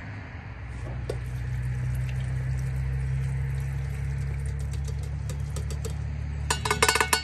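Acetone poured from a bottle into a funnel in an old flathead V8 engine, trickling liquid over a steady low hum. A short rattle of sharp clicks comes near the end.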